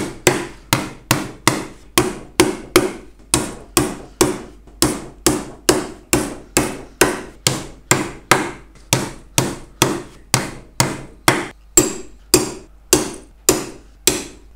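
Claw hammer driving wire nails into the finger-jointed corner of a wooden beehive brood box: a steady, even run of sharp blows, about two and a half a second.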